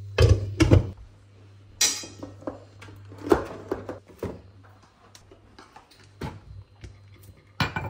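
Kitchen handling noises: pots, a lid and dishes knocking, and a door being opened, heard as a string of separate knocks and clicks. The loudest are in the first second, over a low hum that fades about a second in.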